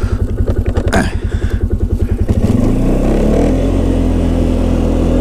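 Four-wheel-drive ATV engine chugging at low revs with even, rapid firing pulses, then the throttle opens about two and a half seconds in and it settles into a steadier, slightly rising drone as the machine pulls away.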